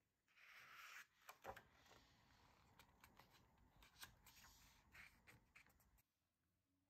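Faint rustling of paper pages as a new paperback planner is opened and its pages turned by hand, with a scatter of soft clicks and taps. It stops suddenly near the end.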